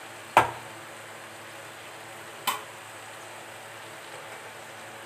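Vegetables frying with a low steady sizzle in a metal kadhai, with two sharp knocks of the wooden spatula against the pan about two seconds apart, the first much louder.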